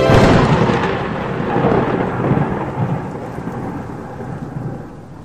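A thunderclap: a sudden loud crack that rolls into a rumble with a rain-like hiss and fades away over about five seconds.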